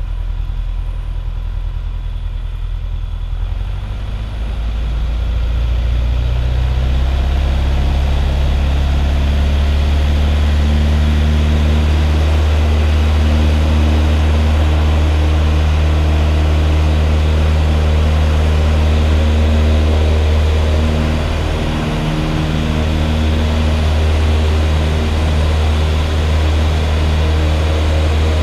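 Single-engine light aircraft's piston engine and propeller heard from inside the cockpit, rising to full power about five seconds in and then holding steady, as for a takeoff run. The power dips briefly about three quarters of the way through.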